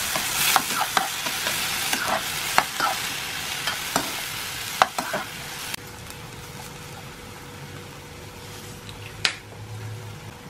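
Vegetables sizzling as they are stir-fried in a nonstick frying pan, with a spatula repeatedly scraping and tapping the pan. A little over halfway it drops suddenly to a quieter frying hiss with a faint steady hum, and there is one sharp tap near the end.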